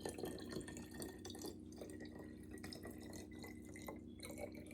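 Water trickling and dripping into a bottle as it is poured in, with small irregular drip sounds and a faint tone that rises gently as the bottle fills.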